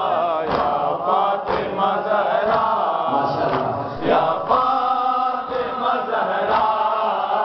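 Male voices chanting a Shia noha in a rhythmic refrain, over group chest-beating (matam): the hand strikes land together about once a second.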